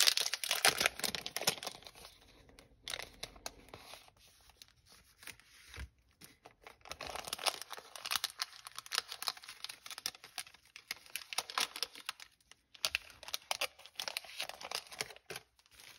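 A packet of floral stickers being torn open and crinkled by hand, with bouts of crackly rustling that are loudest in the first couple of seconds and come back again in the middle and near the end.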